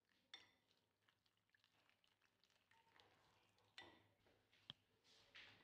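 Near silence, with faint clicks and scrapes of a wire whisk stirring thick jalebi batter in a glass bowl; a few clicks stand out about four seconds in.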